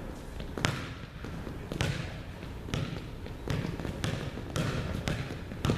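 Feet striking a hardwood gym floor in an agility-ladder footwork drill, with sharp impacts about once a second that ring on in the gym's echo.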